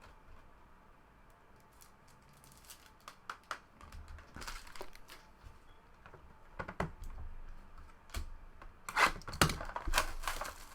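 Trading cards and their packs being handled: scattered light clicks and papery rustles, quiet at first and getting busier and louder near the end.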